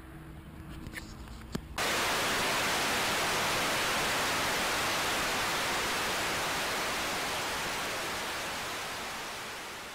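Analog static hiss, like TV snow, cutting in suddenly about two seconds in and slowly fading out near the end. Before it, faint outdoor ambience with two small clicks.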